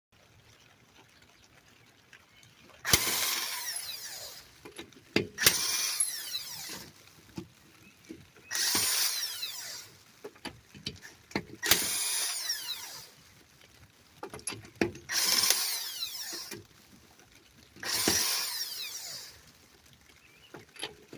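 Half-inch impact gun with a 13/16 socket spinning the lug nuts off a Hyundai Tucson's rear wheel, one nut at a time. There are six short bursts about three seconds apart, each ending in a falling whine as the gun winds down.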